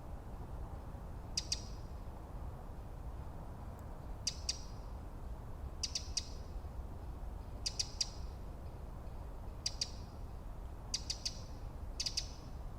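A bird repeating a short, sharp call about seven times, each a quick double or triple note, every one to three seconds. A steady low rumble runs underneath.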